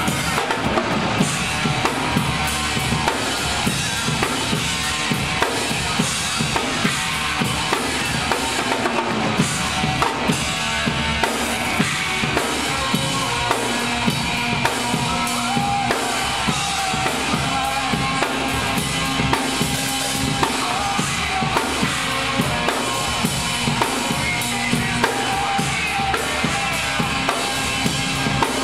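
Drum kit played continuously: fast, dense hits on bass drum, snare and cymbals, with held pitched notes sounding underneath.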